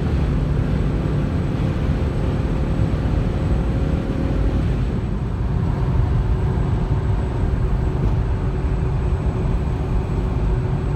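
Steady rumble of tyres and engine heard from inside a car's cabin while driving at highway speed. The faint hum in the noise changes pitch about halfway through.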